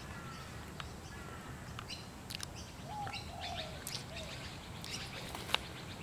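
Faint scattered bird chirps and short whistled calls, with a sharp click about five and a half seconds in.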